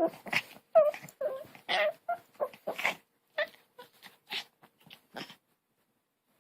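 A dog making a rapid series of short whining, yowling calls, each bending up or down in pitch, which stop about five seconds in.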